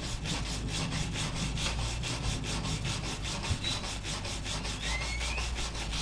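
Hand wire brush scrubbing slag off a fresh flux-core weld bead on steel plate, in quick, even back-and-forth strokes, about six or seven a second.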